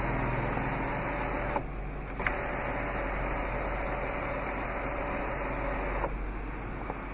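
Electric motor of the panorama sunroof running with a steady whir, stopping briefly about a second and a half in, then starting again with a click and running for about four more seconds before stopping.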